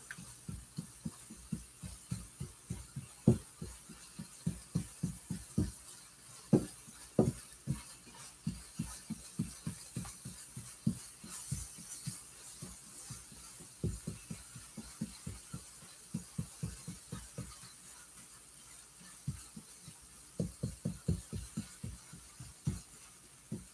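Metal utensil stirring scrambled eggs in a frying pan, with soft knocks and scrapes against the pan about three or four a second and a lull around 18 seconds in. The eggs are nearly cooked.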